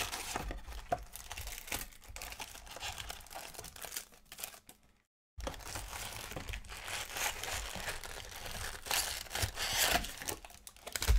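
Cardboard trading-card box being torn open by hand, then foil-wrapped card packs crinkling as they are pulled out of it. The sound cuts out completely for a moment about halfway.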